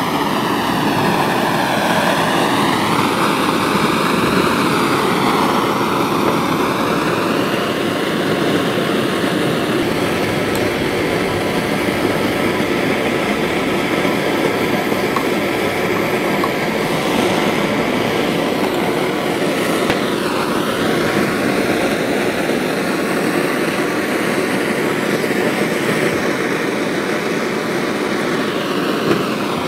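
Handheld butane blowtorch burning steadily with a loud, even flame noise. Its tone wavers in the first few seconds, then holds steady.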